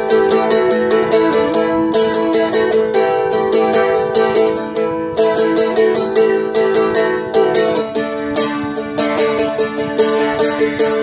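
Seagull Merlin M4 fretted dulcimer strummed briskly with a pick: a melody moves over steadily ringing drone strings.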